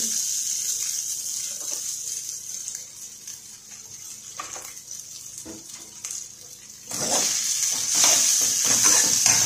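Rice sizzling in a hot pan with a metal spoon stirring it: quieter at first, while coconut oil is poured in from a bottle, then louder scraping and hissing of the stirring from about seven seconds in.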